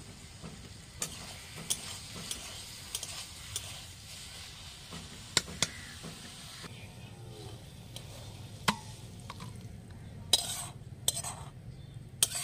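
A metal spatula stirs and clinks against a wok of sizzling taro-leaf curry. The sizzle cuts off suddenly a little past halfway as the wok is lifted off the fire. A few loud scrapes follow near the end as the spatula scrapes the curry out onto a steel plate.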